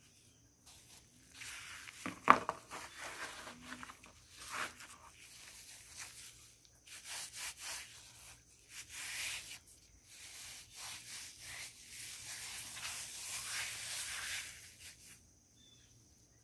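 Heart-shaped naphthalene mothballs crushed and ground in gloved hands. A sharp crack comes about two seconds in, followed by repeated gritty crunching and rubbing of the chalky powder against the gloves, which stops about a second before the end.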